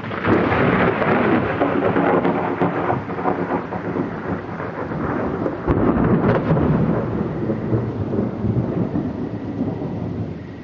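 Thunder rolling through a rainstorm. A long rumble swells at the start, a second, sharper peak comes about six seconds in, and the rumble then slowly fades over steady rain.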